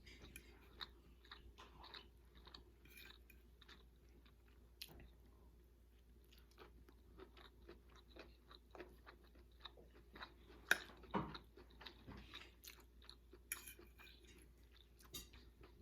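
Faint, close-miked chewing of a mouthful of food, made up of many small wet mouth clicks, with a couple of sharper clicks a little past ten seconds in.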